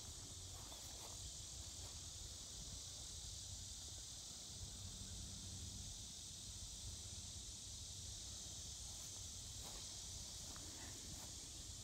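Steady chorus of insects, a continuous high-pitched buzzing hiss, with a faint low rumble beneath.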